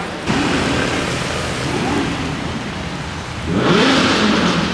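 Gemballa Mirage GT's 5.7-litre V10 revving in a run of short blips, its pitch rising and falling each time. The loudest blip comes near the end.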